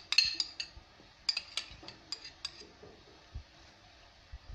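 Metal spoon clinking and scraping against ceramic dishes: a string of short, sharp clinks in the first half, then quieter.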